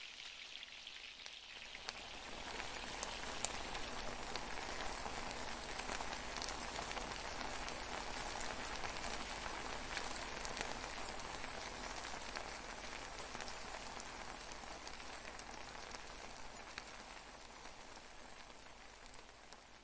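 Rice sizzling and crackling in a wok as its last liquid cooks off over low heat. It is a dense patter of tiny pops that swells about two seconds in and slowly fades toward the end.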